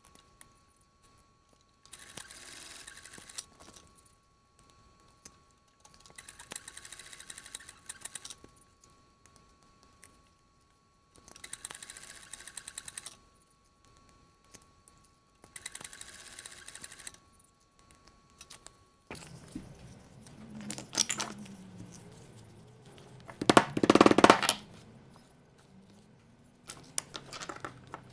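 Weaver 205 leather sewing machine stitching through heavy veg-tan leather in four short runs of a second or two each, over a faint steady whine. About two-thirds of the way in this gives way to a mallet striking a setting tool to set brass rivets: several sharp knocks, the loudest a quick cluster a few seconds later.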